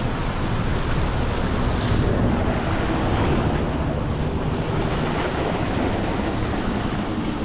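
Ocean surf washing and breaking over coastal rocks, with wind buffeting the microphone: a steady, rushing noise.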